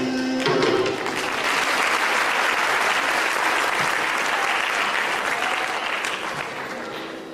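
Audience applauding at the end of a Carnatic vocal performance. A man's last sung note breaks off about half a second in, then the clapping fills the hall and fades away near the end.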